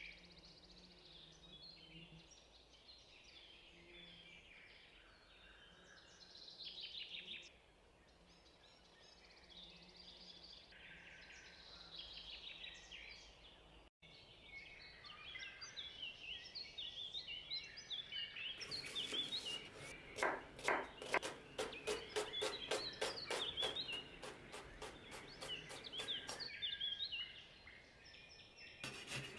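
Birds chirping faintly in the background throughout. From a bit past the middle, a knife chops onion on a cutting board in a fast, even run of about four strokes a second, lasting about eight seconds.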